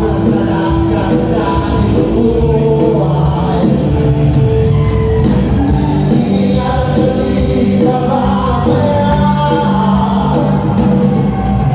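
Live band playing loud amplified music through a PA system, with a singer.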